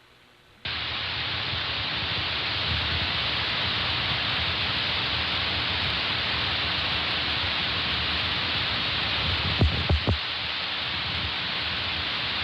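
Steady radio static hiss that switches on abruptly after a brief silence, with a few short pops about ten seconds in.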